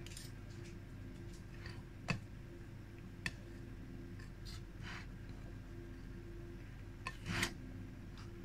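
Spoon stirring a mixture in a mixing bowl: a few light clicks and short scrapes, over a faint steady hum.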